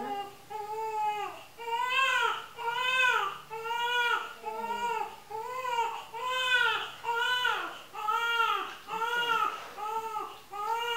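Newborn baby crying steadily in repeated wails, about one a second, each rising then falling in pitch.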